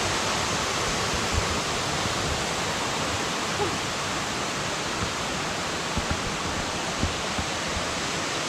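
Waterfall running full, a steady rushing of falling water.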